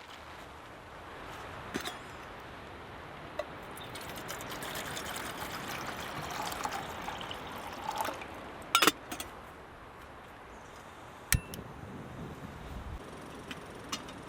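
Rain falling on a tarp shelter in a windy storm: a steady patter that swells for a few seconds midway and then eases, with a few sharp taps, the loudest a double tap about nine seconds in.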